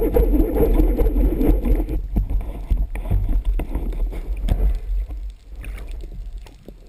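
Underwater water noise heard through a speargun-mounted camera housing: a bubbling, gurgling rush that thins out about two seconds in, leaving quieter water with scattered small clicks and knocks.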